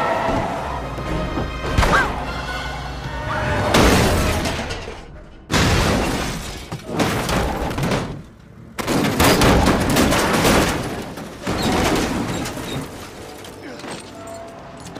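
Film action-scene soundtrack: music under a run of crash effects, with car-body impacts, booms and glass shattering as a taxi is smashed up. The hits come in several loud bursts, one starting abruptly about five and a half seconds in.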